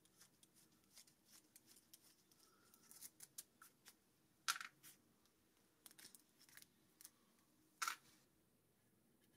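Faint handling noise: light clicks and rustles of gloved hands working a small push-button stop switch and its metal mounting nut. Two slightly louder short scrapes come about four and a half and nearly eight seconds in.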